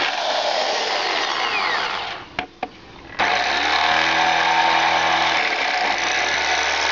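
Electric drill boring a hole through a motorcycle's sheet-metal mudguard. It runs, stops for about a second just after two seconds in, with two sharp clicks in the pause, then starts again with a steady motor whine.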